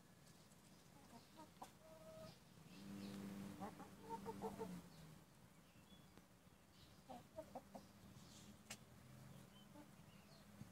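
Domestic hens clucking faintly while feeding, with short calls and a longer, drawn-out call about three to five seconds in; a single sharp click near the end.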